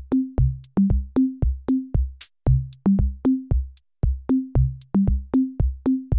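Electronic background music: a drum-machine beat of quick, evenly spaced hits, each carrying a short low pitched note, about three or four a second.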